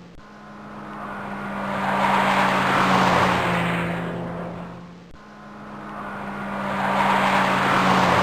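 A rushing noise that swells and fades about every five seconds, over a steady low hum.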